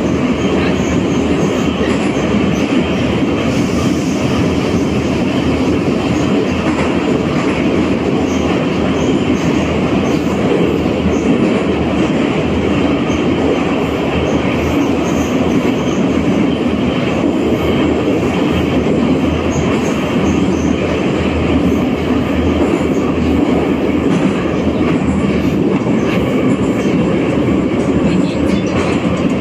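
Metro train running between stations, heard from inside the passenger car: a loud, steady running rumble of the car on the rails in the tunnel.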